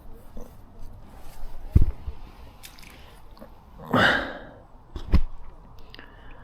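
Close handling noise: two dull knocks, about two and five seconds in, with a brief rustle between them.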